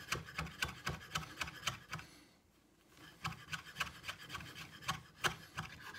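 Chef's knife chopping fresh dill on a bamboo cutting board: quick repeated taps and scrapes of the blade against the wood, with a brief pause a little over two seconds in.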